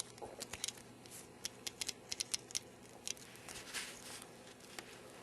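Ratchet of an AMP 69656 hand crimper clicking as the handles are worked: a run of sharp, irregular clicks, most of them in the first three seconds.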